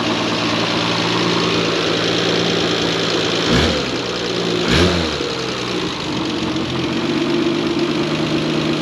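1968 Triumph GT6's two-litre straight-six idling while it warms up, with two quick blips of the throttle about three and a half and five seconds in.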